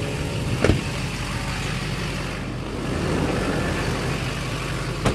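Vehicle engine idling steadily, with two sharp thumps, one about a second in and another near the end.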